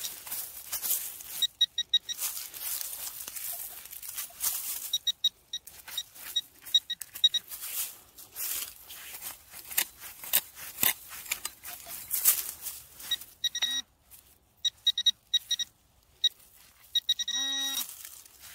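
A hand pick scraping and chopping into pine needles and soil, with a metal-detector pinpointer beeping in rapid runs of high pulses as it nears the target, and a longer, slightly wavering detector tone near the end.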